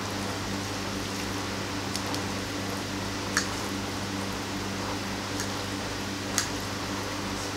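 Metal fork and spoon lifting and tossing noodles on a plate, with about four light clicks of the utensils against the plate, the ones about a third and five-sixths of the way through the loudest. A steady low hum runs underneath.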